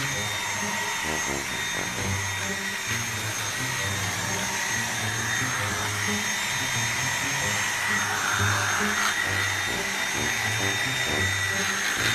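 Dyson cordless stick vacuum running steadily with a high motor whine, with background music underneath.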